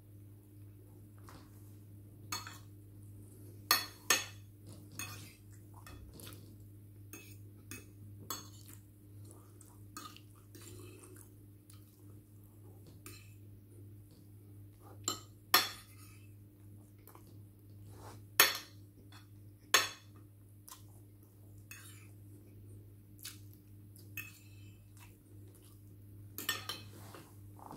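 Cutlery clinking and scraping against dishes as someone eats: a scattered run of sharp clicks, with a few louder pairs of strikes.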